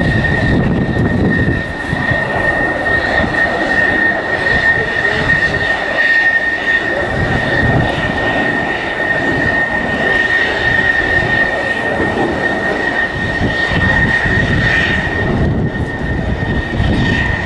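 Eurofighter Typhoon's twin Eurojet EJ200 turbofan engines running as it flies in on a landing approach, gear down: a rumble of jet noise with a steady high whine over it.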